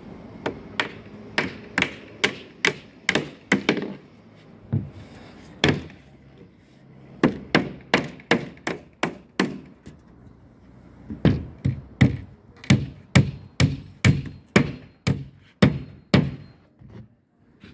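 Hammer driving nails into plywood formwork sheets for a concrete slab roof: sharp strikes about two a second, in runs with short pauses between them.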